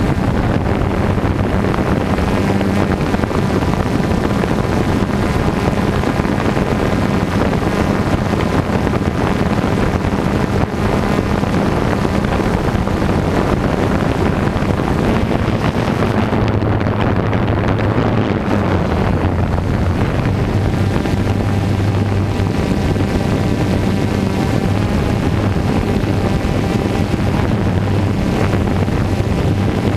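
DJI quadcopter drone's propellers humming steadily, the pitch shifting a little after about sixteen seconds as it manoeuvres, with wind buffeting the microphone.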